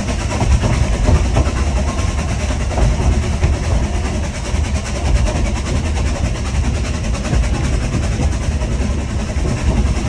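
Steady, loud rumble and clatter on the footplate of the Hunslet narrow-gauge steam locomotive Linda, heaviest in the low end, with no single beat or knock standing out.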